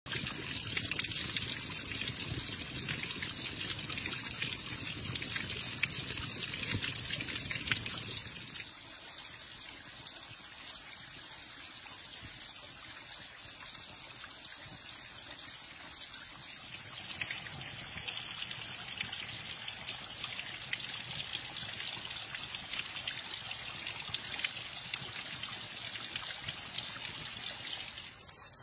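A small waterfall trickling and splashing down wet, layered rock ledges, as a steady watery rush. It is louder and fuller for the first eight seconds or so, then quieter and thinner.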